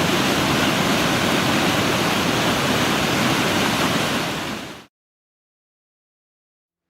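Rushing water of river chutes and a waterfall: a steady, even roar that fades out quickly about four and a half seconds in, followed by silence.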